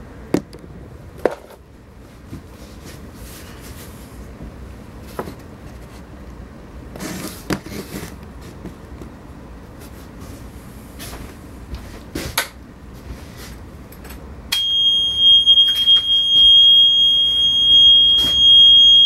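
Rustling and a few knocks of handling, then about fifteen seconds in a steady, high-pitched warning buzzer from the Yanmar 2GM marine diesel's instrument panel starts and keeps sounding, the alarm that sounds once the panel is switched on and before the engine is running.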